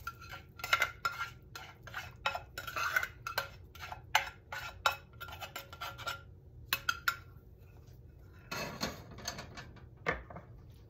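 A spatula scraping and knocking against the inside of a nonstick saucepan as cooked jasmine rice is scraped out into a skillet: a quick, uneven run of clicks and taps. About eight and a half seconds in, a brief clatter and then a thump as the saucepan is set down on the stove.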